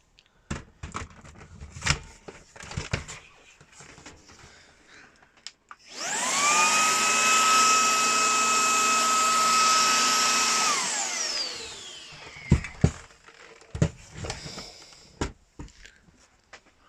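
Shark WandVac WV361UK cordless handheld vacuum: after a few plastic clicks and knocks, its motor spins up about six seconds in, runs steadily with a high whine for about five seconds, then winds down. A few more knocks follow near the end.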